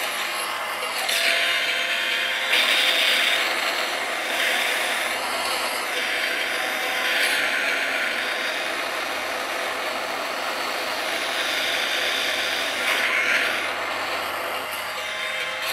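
Racing video game sound played on a tablet: a car's engine running at speed with rushing, hissing driving noise that swells louder every few seconds.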